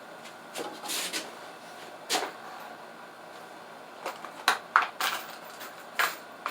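Scattered short knocks and clicks of parts being handled, the busiest run of them about four to five seconds in.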